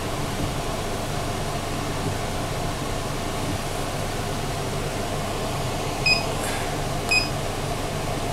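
Steady hum of a room air conditioner, with two short electronic beeps about a second apart near the end from a mill's digital readout keypad being pressed.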